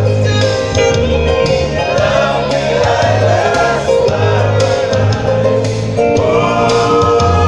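A group of men singing together in harmony, with long-held low bass notes under gliding higher voices.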